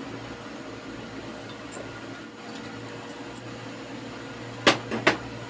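A small electric motor hums steadily. Two sharp clicks come close together near the end.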